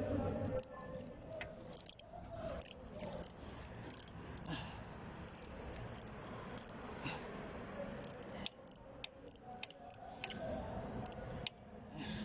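Irregular metallic clicks and clinks of hand tools on bolts as a replacement starter motor is bolted into place.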